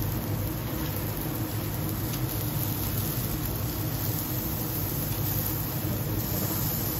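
Steaks sizzling on a cast-iron grid plate over a charcoal-topped professional gas grill, under a steady fan-like hum and hiss.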